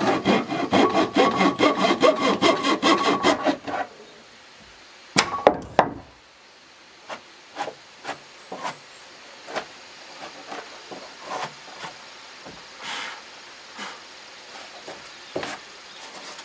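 Hand saw cutting through a wooden door panel in fast strokes for about four seconds, making the opening for a cat door. A few loud wooden knocks follow about five seconds in, then scattered light taps and clicks.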